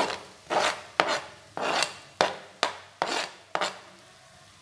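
Chopped onion scraped off a plastic chopping board into a pan of oil: a series of short rasping scrapes, about two or three a second, that stop a little before four seconds in.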